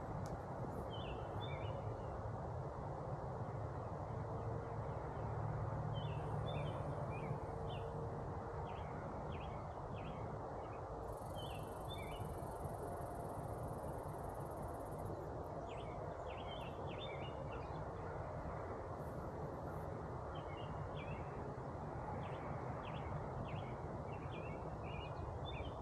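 Steady low hum of Carniolan honey bees flying around the hive, with songbirds chirping in short bursts throughout.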